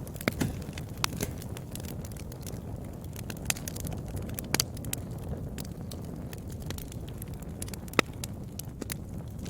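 Wood fire burning: a steady low noise of flames with scattered sharp crackles and pops, the loudest snap near the end.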